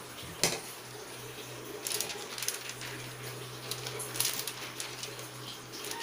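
Hands working flour into potato dough on aluminium foil: the foil crinkles and rustles with scattered crackles, after a single sharp knock about half a second in. A steady low hum runs underneath.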